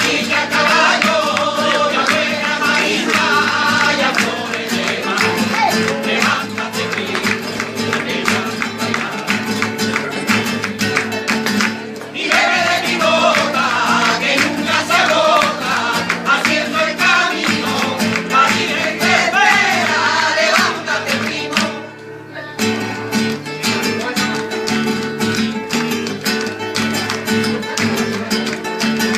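Flamenco-style music: guitar with a wavering singing voice over it, pausing briefly about three quarters of the way through.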